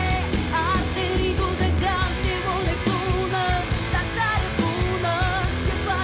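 Live alternative rock band playing: a woman's lead vocal, held notes with a wide vibrato, over distorted electric guitars and drums.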